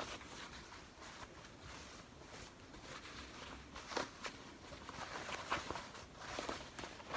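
Fabric rustling and crumpling as a denim zipper pouch is pulled through the opening in its lining and turned right side out, with scattered light clicks and taps from handling it.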